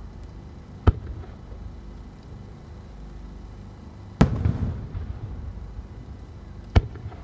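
Aerial firework shells going off one at a time: three sharp booms, about a second in, about four seconds in and near the end. The middle boom is the loudest and rolls on in a rumbling echo.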